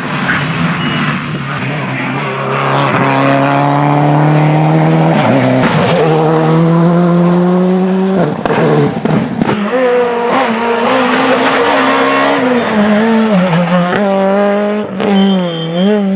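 Rally car engine at high revs, its pitch climbing steadily through a gear, then a few seconds of rough, noisy sound, then the engine back with revs rising and falling quickly as the car works through a section.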